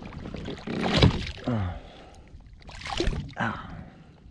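Water splashing and knocking in a small boat while a hooked bass is brought in, loudest about a second in and again about three seconds in, with a short falling pitched sound between them.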